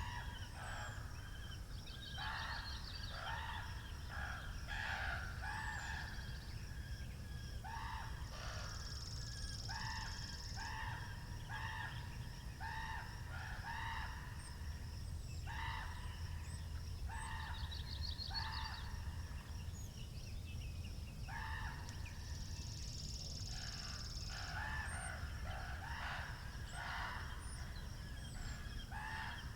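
Domestic chickens clucking in short repeated calls, over a steady low rumble of wind, with faint small-bird chirps now and then.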